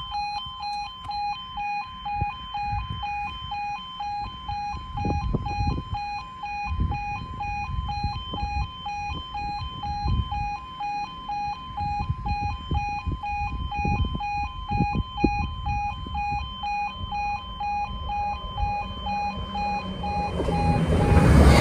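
Railway level crossing warning alarm sounding a steady pulsing two-tone note, the signal that the barriers are down for an approaching train, with wind gusts buffeting the microphone. Near the end the approaching train's noise rises quickly.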